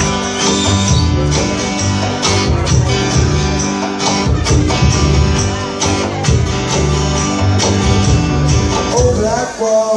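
Solo acoustic guitar strummed in a steady, driving rhythm, played live. The low notes thin out about half a second before the end.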